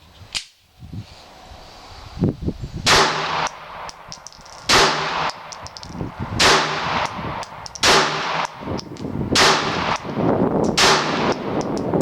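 Semi-automatic pistol firing six shots, roughly one and a half seconds apart, each with a short echoing tail.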